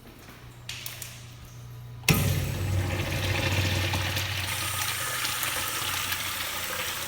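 Restroom plumbing fixture flushing: a sudden loud rush of water starts about two seconds in and runs on steadily.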